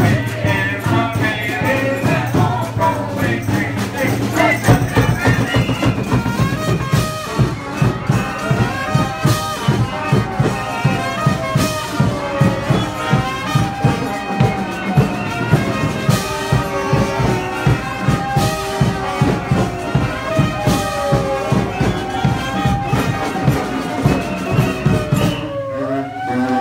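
Live street-band music: horns playing a sliding melody over a fast, steady drumbeat that comes in a few seconds in. The music breaks off briefly near the end.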